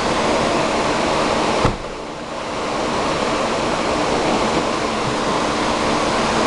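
Toyota RAV4 engine idling with its electrical loads switched on for an alternator load test, heard as a steady rushing noise. The noise dips briefly a little under two seconds in.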